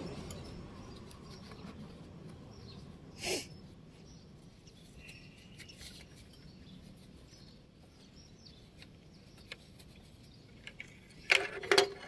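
Quiet outdoor street ambience: a rush of traffic noise fades out over the first couple of seconds, a faint bird chirp sounds midway, and a few loud sharp clicks and knocks come near the end.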